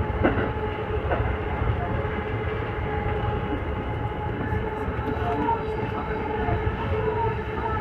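Chuo Line Special Rapid electric train running into a station, heard from just behind the driver's cab: a steady rumble of wheels on rail with a steady whine over it, and two sharp rail-joint clicks near the start.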